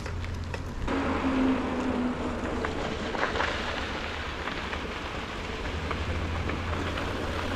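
Mountain bike tyres rolling and crunching over a dirt road, with wind rumbling on the handlebar camera's microphone. The rolling noise grows louder about a second in.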